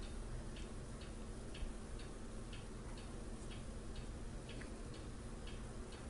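Faint, regular ticking, about two ticks a second.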